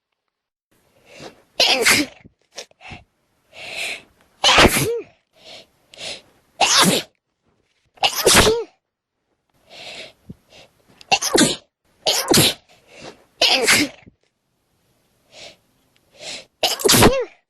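A person sneezing again and again in a sneezing attack: about eight loud sneezes, one to three seconds apart, with shorter, quieter sounds before most of them.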